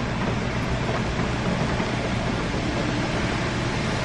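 Steady low rumble and hiss of an idling car, heard from inside the cabin.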